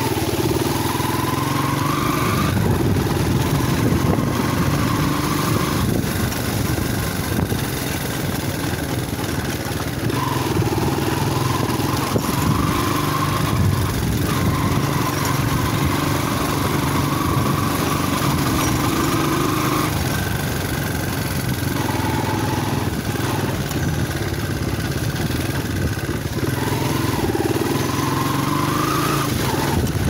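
Motorcycle engine running under way on a rough dirt track. The engine note rises and changes pitch several times as the throttle opens and the gears change.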